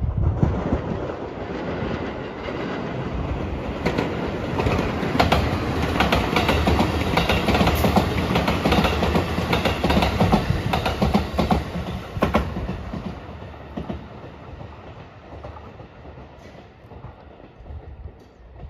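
Rapid Marine Liner electric train passing close by, its wheels clacking over rail joints in a quick run of clicks for about eight seconds, then fading as the train moves off.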